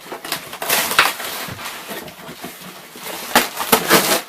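Cardboard box and packaging being pulled and torn open, crunching and scraping loudly in two bursts: one about a second in and one near the end.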